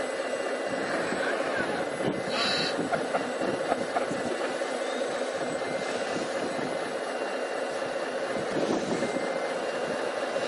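Radio-controlled scale-model construction vehicles running: a steady whirring hum of small electric motors, with a brief higher hiss about two seconds in.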